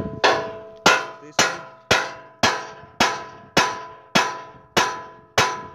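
Hammer blows on the steel frame of a tractor-mounted blade implement: about ten evenly spaced strikes, roughly two a second, each ringing and fading. The blows are knocking the blade into place on the implement.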